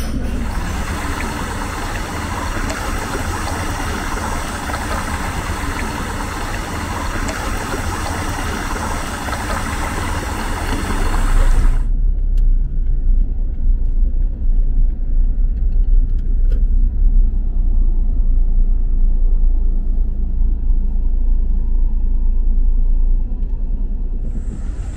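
Car being driven, heard from inside the cabin: a steady rumble of engine and tyres. A little before halfway the sound changes abruptly from a brighter hiss to a deeper, heavier low rumble.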